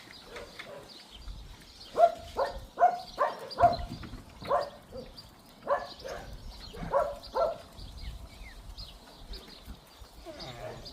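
Puppies yapping: about a dozen short, high barks in quick runs, starting about two seconds in and stopping a few seconds before the end.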